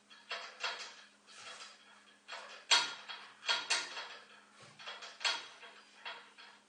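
Paper towel over a cloth rubbing across a wood-stove's glass door, a run of short, uneven wiping strokes, one or two a second, loudest near the middle, as the cleaner paste and tar deposits are scrubbed off.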